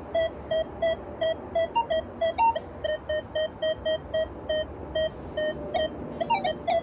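Minelab Equinox 900 metal detector giving a run of short low-pitched beeps, about three a second, as rusty iron is waved over its coil. A few higher tones break in, and near the end comes a quick warble of changing pitches. In all-tones mode the low tone marks an iron target ID.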